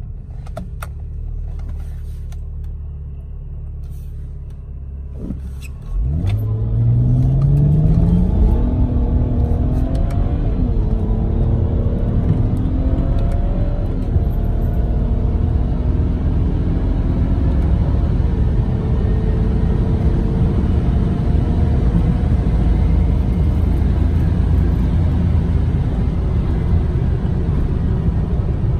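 Tuned BMW 335i's turbocharged inline-six, with a Stage 2 tune, catless downpipe and six-speed automatic, accelerating at full throttle from inside the cabin. It runs low and steady for about six seconds, then jumps suddenly louder, its pitch climbing in each gear and dropping at each upshift.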